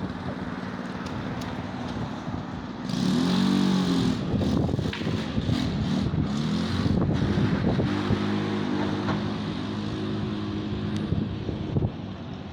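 Street traffic: motor vehicles passing, one engine's pitch rising and falling loudly about three seconds in, then a steadier engine hum.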